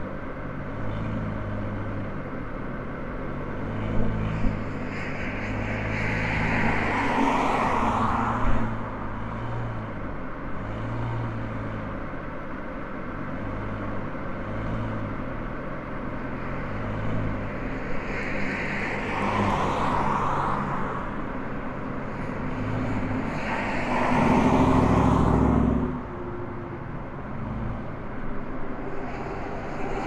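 Car driving on a road: steady engine and tyre noise, with three louder swells, the loudest about five seconds before the end.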